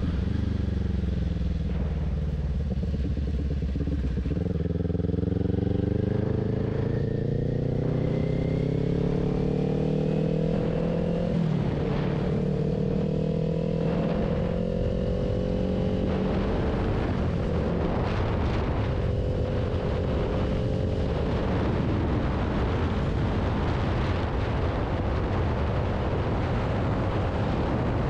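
Motorcycle engine (a 2018 Kawasaki Ninja 400 parallel twin with a Two Brothers exhaust) running on the road. It eases off at first, then its pitch climbs steadily as it accelerates, dips briefly at a gear change a little before halfway, and settles into a fairly steady cruise.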